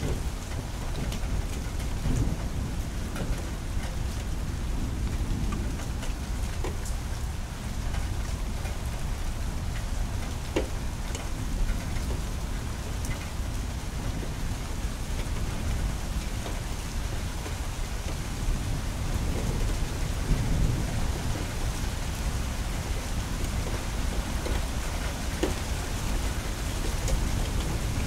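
Steady rain falling, with sharp ticks of drops striking a hard surface, and low thunder rumbling. The strongest rumble swells about twenty seconds in.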